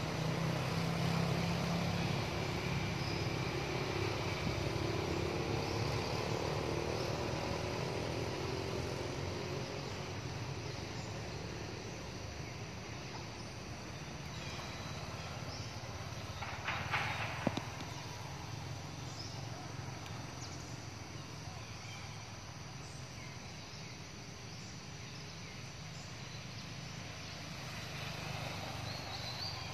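Outdoor ambience dominated by the steady low rumble of a motor vehicle's engine running nearby, louder in the first few seconds. A short sharp clatter stands out about seventeen seconds in.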